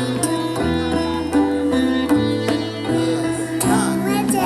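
Sitar music: plucked notes played over a steady drone.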